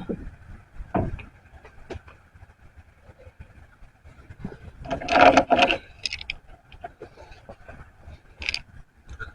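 Scattered knocks and scrapes as a car wheel is handled and fitted onto the hub studs, with a louder metallic clatter about five seconds in and a sharp click near the end.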